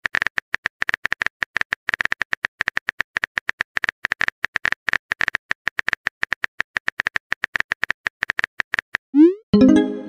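Rapid keyboard-typing clicks as a sound effect, about ten a second. Near the end a short rising swoop and a brief chime-like alert sound over them, the kind that marks a message arriving.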